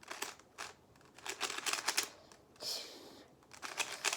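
A cheap plastic 3x3 twisty-puzzle cube being turned by hand: runs of quick clacks as the layers are twisted, with a brief scratchy scrape near the three-second mark. The cube turns loudly and scratchily because it is a poorly made one.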